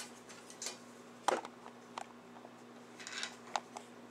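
Small clicks and taps of metal parts being handled on a Leslie two-speed upper motor assembly, with a sharper knock about a second in and a few quick ticks near the end, over a faint steady hum.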